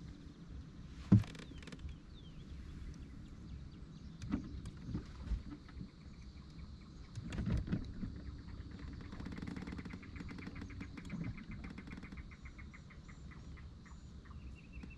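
Outdoor ambience on the water: faint bird and insect chirping over a low steady background, with one sharp knock about a second in and a few softer knocks later.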